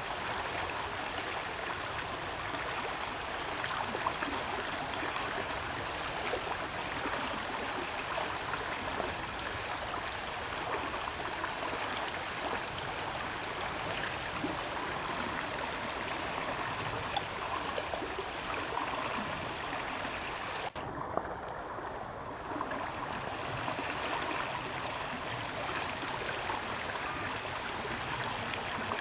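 Steady rushing noise like flowing water from a stream, unbroken, with the upper hiss briefly dulling about three-quarters of the way through.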